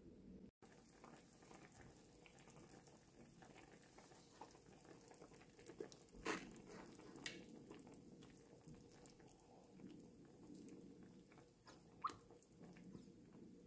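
Faint simmering of the meat-and-onion stew with small crackles, and a few squirts and clicks from a plastic ketchup squeeze bottle being emptied into the pan, the loudest about six seconds in and another near the end.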